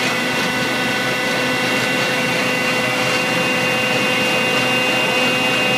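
Frac truck's engine and circulation pump running steadily, with a constant whine, while pumping descaling solution through the hose and sight tube of the closed circulation system.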